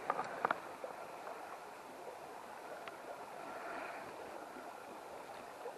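Faint, steady rush of river current running over a shallow riffle, with a few small clicks in the first half second.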